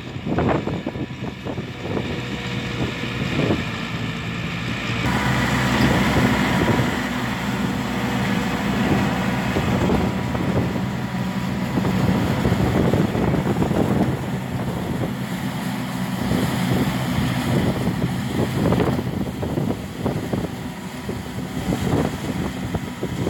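Tractor engine running steadily while powering a straw-collecting machine (a straw reaper gathering combine-harvested wheat stubble into a trolley). The machine gets noisier about five seconds in, and there is wind on the microphone.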